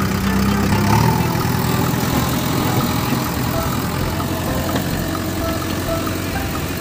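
A motor-vehicle engine running steadily at an even, unchanging level, heard alongside a toy backhoe loader driving over the ground.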